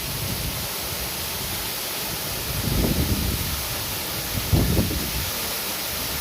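Steady rushing hiss of a waterfall, with low rumbles about three seconds in and again near five seconds.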